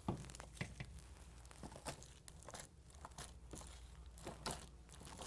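Jelly cube slime, clear glue slime with chopped sponge pieces, being squeezed and kneaded by hand: faint, irregular crackles, pops and squishes, the sharpest right at the start.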